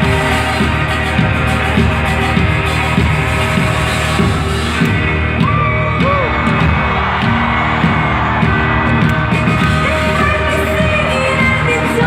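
A live band playing a synth-driven rock song over a steady drum beat, recorded from the audience seats of a large hall, with a few whoops from the crowd.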